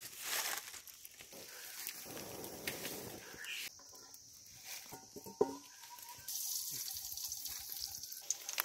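Small fire of dry sticks crackling with a steady hiss, the sound changing abruptly twice, and one sharp snap about halfway through.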